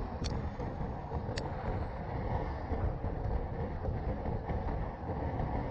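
Steady wind rush and road rumble on a handlebar-mounted GoPro's microphone as a road bike rolls along asphalt. Two short sharp clicks about a second apart near the start.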